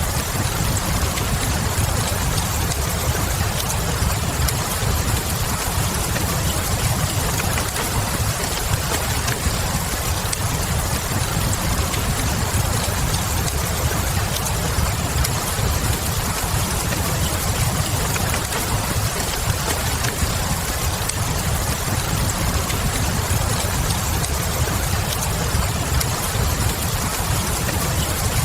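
Steady rain hiss with a low rumble underneath, and small wood-fire crackles scattered through it.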